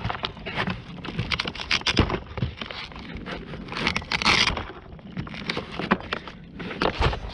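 Handling noise: irregular clicks, taps and scrapes of hands working on an RC model airplane and its gear, with a brief hiss about four seconds in.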